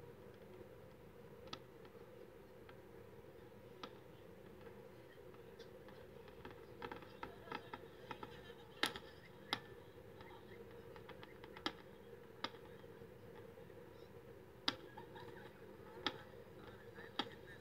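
Distant aerial fireworks going off: scattered sharp pops and cracks, about a dozen, with a quick run of them about seven to eight seconds in, over a steady low background hum.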